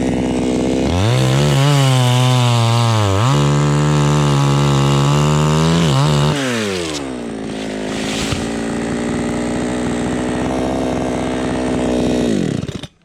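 Chainsaw cutting through a coconut trunk section. It revs up about a second in and runs at full throttle with its pitch dipping as it loads in the cut, then drops back to idle after about six seconds and is shut off near the end.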